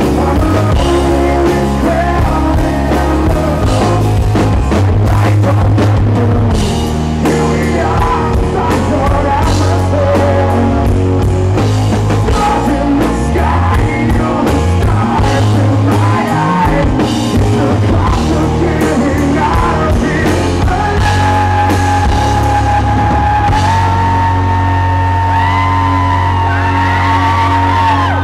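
Live rock band playing: a male lead singer over electric guitars and drums, loud and close to the stage. The drum hits thin out after about twenty seconds, leaving long held notes under the voice.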